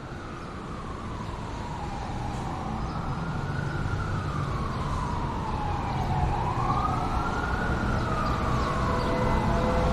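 Synthesized SD-10 civil defense siren wailing, its pitch rising and falling in slow sweeps of about four seconds and growing louder, over a steady rumble.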